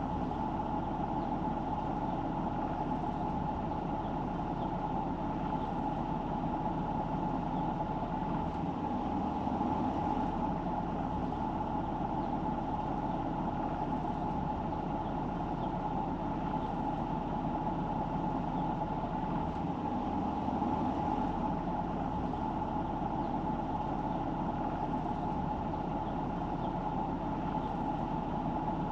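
Car driving: steady engine and road rumble with a constant mid-pitched hum, no distinct events.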